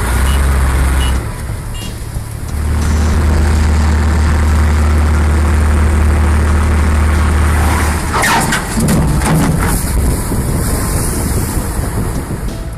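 Heavy truck's diesel engine running hard, a loud steady low drone that drops away about a second in, returns, and stops about eight seconds in. Clattering and knocking follow.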